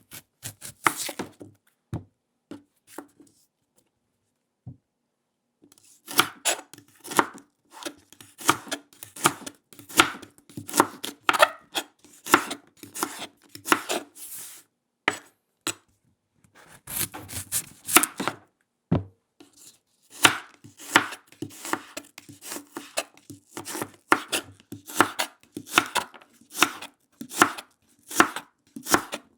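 Kitchen knife chopping a daikon radish on a wooden cutting board: runs of sharp chops, about two a second, with short pauses between runs, the longest a couple of seconds long about three seconds in.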